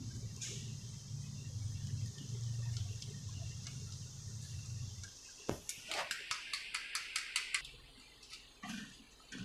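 Metal potato masher working soft cooked peach pieces in a wok, clinking against the pan in a quick run of about five taps a second for a couple of seconds past the middle, with a few more single taps near the end. Before the taps there is a steady low hum with a faint hiss.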